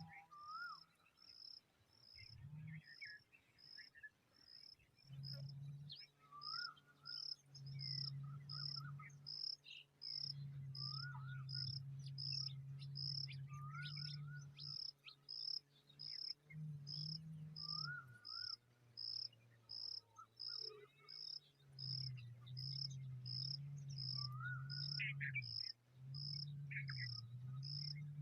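Crickets chirping in a steady rhythm, about two short high chirps a second. Short rising calls come every few seconds, with a low steady hum underneath.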